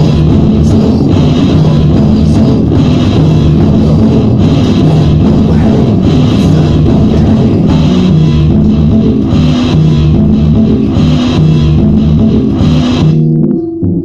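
Rock music with guitar and drums, loud and driving; near the end it breaks off suddenly into a few low held tones.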